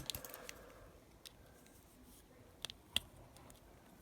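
A few small sharp clicks of a pointed tool prying at a coin battery lodged in a key fob's plastic cartridge.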